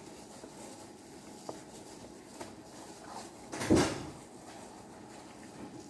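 Raw chicken being rubbed and turned by a plastic-gloved hand inside a large metal cooking pot, giving soft handling noise and faint clicks, with one louder knock against the pot a little under four seconds in.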